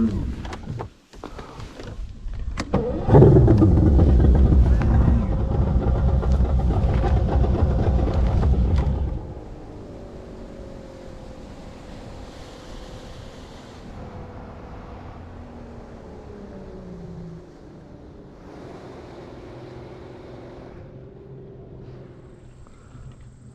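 Boat motor running loud for several seconds, then easing off to a quieter steady hum with a whine that slides down in pitch.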